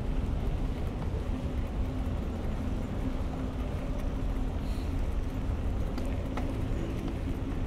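Steady low rumble of city motor traffic with a faint engine hum.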